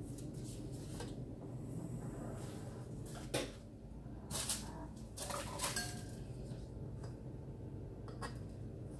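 A metal kitchen utensil clinking and scraping against an aluminium baking tray: a few sharp knocks and short scrapes, the loudest from about three to six seconds in. A low steady hum runs underneath.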